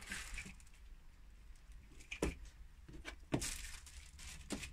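A few light knocks and clicks with short rustling scrapes, made by hands working around the fridge and its cabinet. The sharpest knock comes about two-thirds of the way in.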